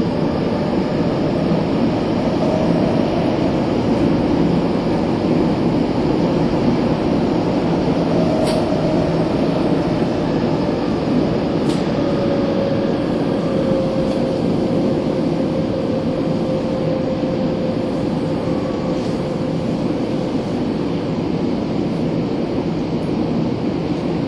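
Nagoya Municipal Subway 6050 series electric train running between stations, heard from inside the car: a steady rumble of wheels and motors with a faint whine that drifts slightly lower midway. Three short sharp clicks are heard during the run.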